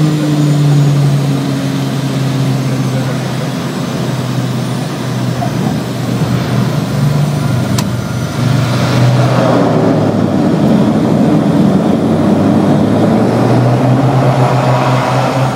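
Twin turboprop's engines and propellers droning, heard in the cockpit during the landing rollout; the hum sags slightly in pitch in the first few seconds. From about eight seconds in, a louder rushing noise swells, then eases near the end.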